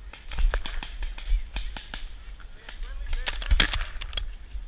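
Paintball markers firing: an irregular run of sharp pops, coming thickest about three and a half seconds in.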